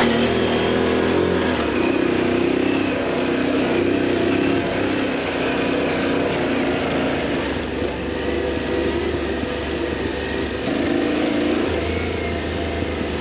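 Adventure motorcycle engine running while riding, with the engine note rising and falling and steady riding noise.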